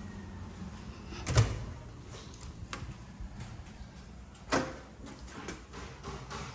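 A door being opened: two sharp knocks, about a second in and again near five seconds, with a few light clicks between.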